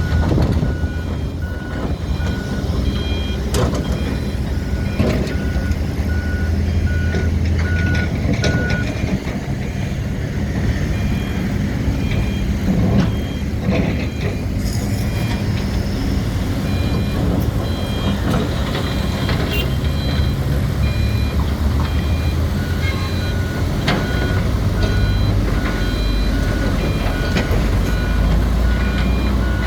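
Heavy diesel excavator running at work breaking concrete, with scattered knocks and clanks as concrete is struck and moved. A backup alarm beeps about twice a second, through the first third and again in the last third.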